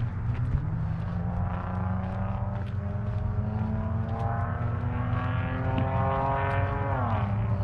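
An engine heard out of sight, its pitch climbing slowly for several seconds and then dropping sharply near the end, as when a motor vehicle speeds up and passes.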